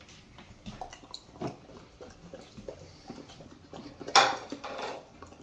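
Golden retriever eating pieces of omelet and pork roll from a raised feeder bowl: chewing and licking with many small clicks against the bowl, and a louder burst of noise about four seconds in.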